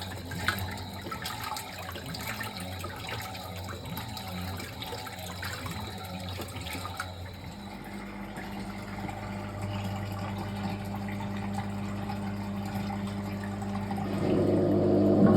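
Fisher & Paykel MW059NZ washing machine during a blankets wash: water running and swishing in the machine, with a steady motor hum setting in about halfway that grows louder near the end.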